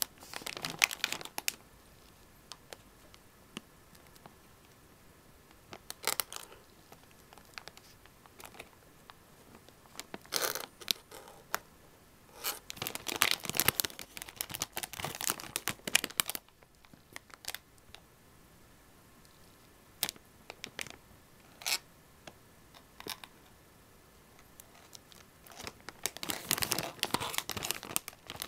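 Clear plastic bag crinkling in irregular bursts as it is gripped and turned by hand, with quiet pauses between; the longest stretch of rustling is in the middle and again near the end.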